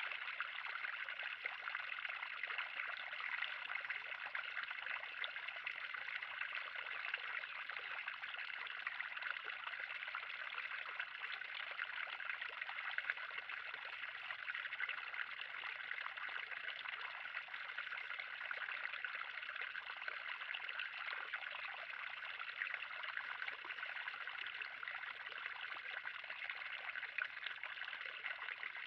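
Water steadily trickling and splashing into a garden pond, an even, unbroken flow.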